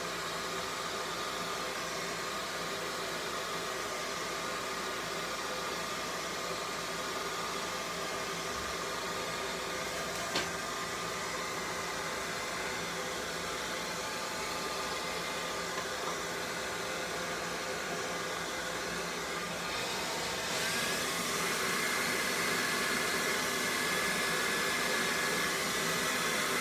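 Handheld hair dryer blowing steadily on its lowest setting, pushing wet acrylic paint across a pour. About twenty seconds in it gets louder, with a higher whine coming through, and there is a single short click about ten seconds in.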